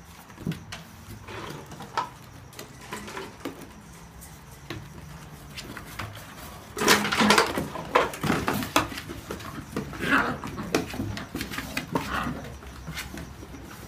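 Whippet puppies playing rough with a cardboard box: cardboard bumping and scraping, scrabbling paws and small puppy vocal sounds. It gets much busier and louder about seven seconds in.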